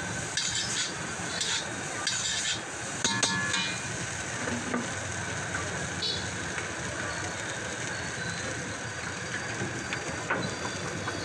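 Noodles sizzling in a hot wok while a metal spatula scrapes and tosses them: rhythmic scraping strokes about once a second for the first three seconds or so, with a ringing metal clink near three seconds in. After that comes a steady sizzle.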